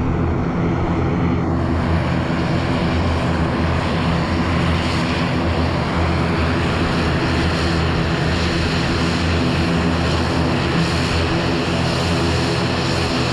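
ATR 72 turboprop airliner's twin engines and propellers running, a steady low multi-tone propeller hum with a hiss above it.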